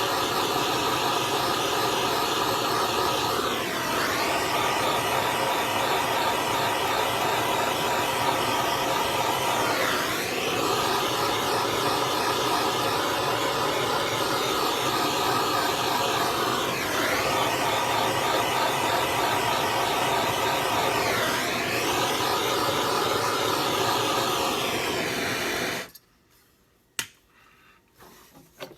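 Electric heat gun blowing steadily, a fan-driven whirring hiss that swells and dips every few seconds as it is moved along the pipe, then switches off suddenly near the end. It is warming black plastic well pipe to soften it so a barbed fitting can be pushed in.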